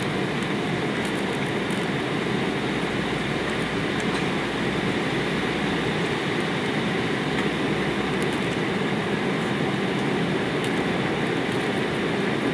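Steady in-cabin noise of an Embraer E190 in flight: the even rush of the CF34 turbofan engines and the airflow past the fuselage, heard from a seat by the wing.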